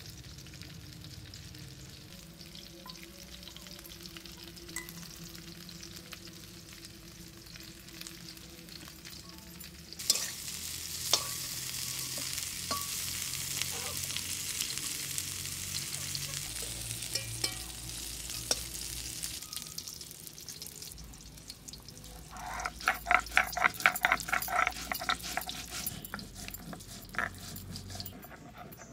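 Cauliflower florets frying in a kadai, a steady sizzle with the spatula scraping and clicking against the pan as they are stirred. The sizzle sets in suddenly about a third of the way in. Near the end comes a short run of quick rhythmic knocks.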